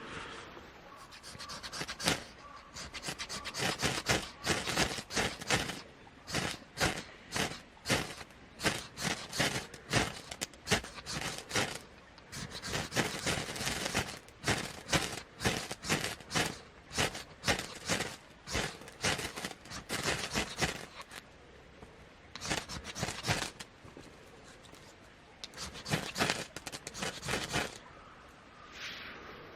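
Rhythmic rasping strokes on wood, about two to three a second, in several runs broken by short pauses, like firewood being worked by hand.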